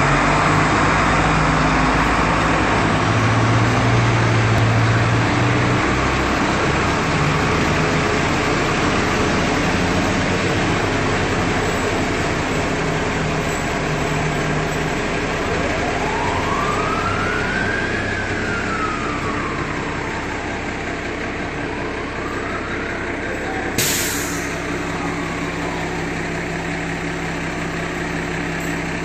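Fire engine's diesel engine running as it pulls out of the station and drives away, loudest in the first few seconds. Its siren winds up and down twice in the distance during the second half, with one sharp crack about three-quarters of the way through.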